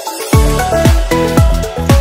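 Electronic background music. A deep kick-drum beat comes in about a third of a second in and repeats about twice a second under short synth notes.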